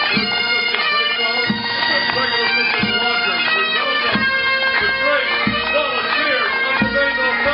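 Pipe band playing: bagpipes with their steady drones under the chanter melody, and a bass drum beating about once every 1.3 seconds.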